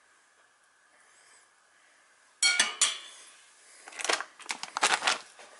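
A metal fork and dishes clinking on a ceramic plate and bowls: two sharp clinks about two and a half seconds in, then a short run of clattering knocks a second and a half later.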